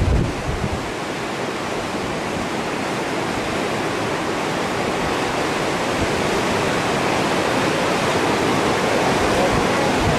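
Steady rushing of whitewater churning through the concrete rapids of an artificial slalom course. Wind buffets the microphone briefly at the start.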